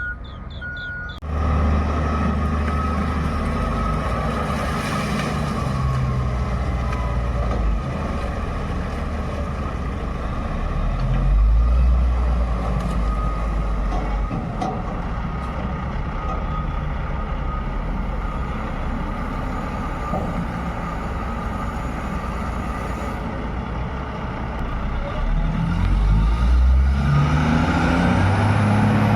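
Mining haul truck's large diesel engine running, its low note shifting up and down as it works; it gets louder about a second in and again near the end.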